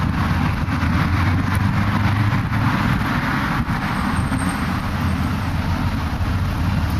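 Street traffic noise: a car passing, loudest about two to three seconds in, over a steady low rumble.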